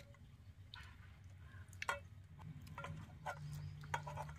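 A few faint clicks and soft wet taps, about one a second, as marinated chicken pieces are laid into an aluminium pot.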